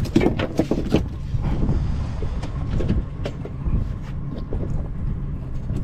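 Small fishing boat's engine running with a steady low rumble. Scattered knocks and clatter from handling on board come mostly in the first second.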